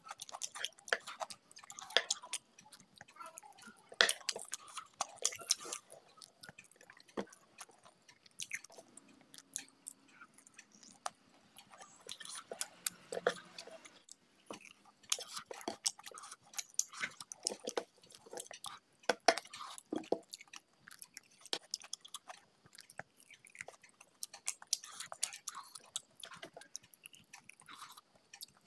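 Close-miked chewing and lip-smacking of a person eating spicy mutton curry with rice by hand, a run of irregular short wet clicks and smacks.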